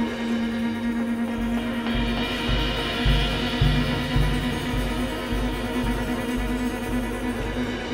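Live improvised trio of grand piano, double bass and drum kit playing a dense, sustained, droning texture. From about two seconds in, deep low notes pulse about twice a second beneath it.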